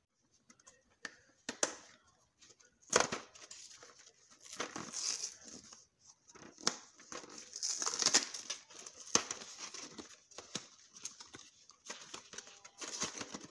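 Paperboard box of mac and cheese being torn open by hand: the cardboard flap ripping and crinkling in a series of short rips and crackles, loudest around three and eight seconds in.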